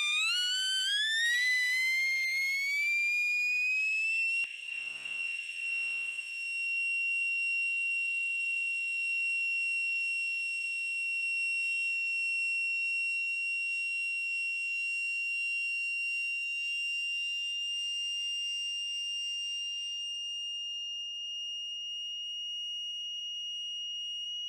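A cartoon character's high-pitched scream, digitally extended. It rises in pitch over the first four seconds or so, then holds as one thin, steady, whistle-like tone, creeping slightly higher near the end.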